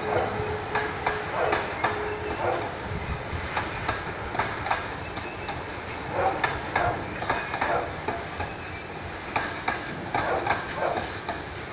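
Freight train wagons rolling past, their wheels clacking over the rail joints in clusters of knocks over a steady rumble. A faint steady tone sounds in the first couple of seconds.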